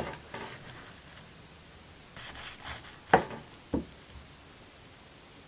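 A RAWMID chef's knife slicing through a baked fish soufflé on a wooden cutting board: soft rasping strokes through the crust, and two sharp knocks of the blade on the board a little after three seconds in.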